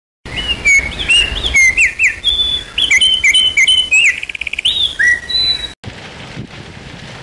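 Songbirds chirping and calling loudly in short, repeated sweeping whistles, with a fast trill a little after the middle. The birdsong cuts off abruptly near the end and gives way to a steady outdoor hiss.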